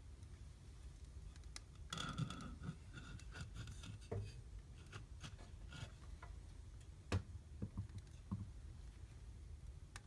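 Wood fire in a fireplace crackling and popping over a low steady rumble, with a burst of crackles about two seconds in and a sharp pop about seven seconds in, followed by a few smaller pops.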